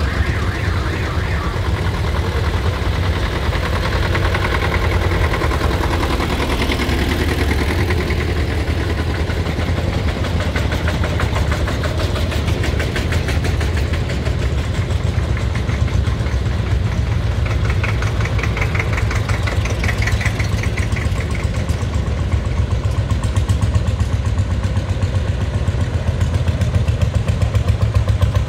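Old tractor diesel engines chugging past at low speed with a steady, even beat, getting louder near the end as the next tractor comes close.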